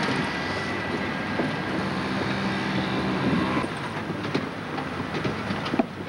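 A train running past on the tracks at a level crossing: a steady rumble, with scattered wheel clicks in the second half.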